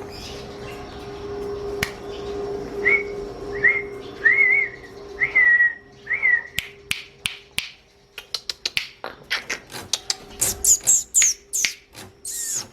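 Long-tailed shrike (cendet) singing: a run of about five short whistled notes, then a fast series of sharp clicking notes and high chirps.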